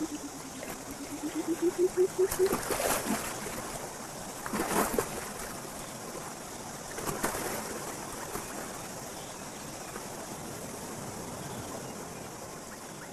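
A clawless otter splashing through shallow river water after a puffer fish, with splashes about three, five and seven seconds in over steady running water. A low pulsing tone slides up and down during the first two and a half seconds.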